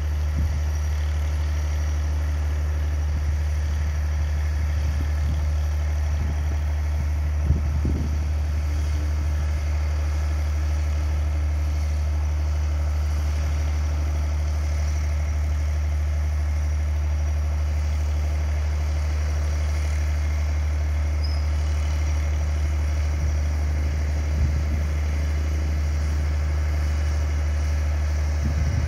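Steady low engine-like hum that does not change in level or pitch, with a brief knock about seven and a half seconds in.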